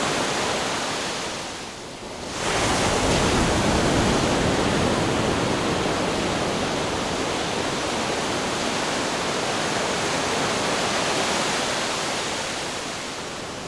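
Ocean surf washing steadily on the beach. About two seconds in the sound briefly drops away, then a wave breaks with a sudden swell of noise that settles back into a steady wash and eases off near the end.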